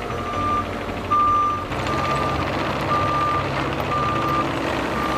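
An excavator's travel alarm beeping about once a second, in even half-second beeps of one steady tone, over the machine's diesel engine running.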